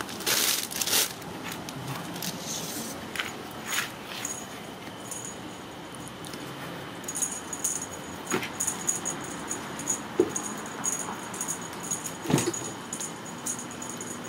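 Ragdoll kittens playing, scrabbling and scratching on cardboard and carpet, loudest in the first second. From about halfway on, a small bell jingles lightly again and again.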